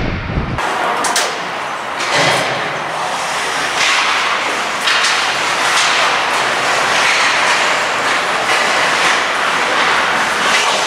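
Ice hockey play in a rink: skate blades scraping and carving the ice, with repeated sharp clacks of sticks and puck about once a second over a steady hiss.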